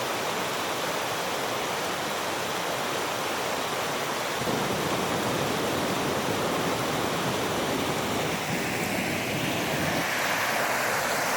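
Water from a small waterfall pouring and splashing steadily, a continuous rushing noise.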